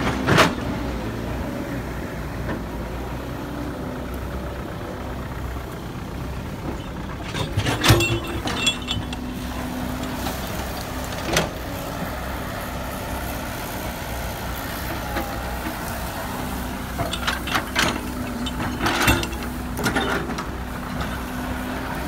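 Caterpillar E120B excavator's diesel engine running steadily, with a hum that comes and goes and several sharp clanks and knocks: a cluster about eight seconds in and more between seventeen and twenty seconds in.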